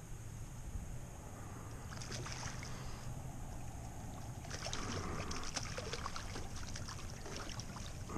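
Water splashing in two bouts, the second louder, as a hooked fish thrashes at the surface and is scooped into a landing net. A steady low hum runs underneath.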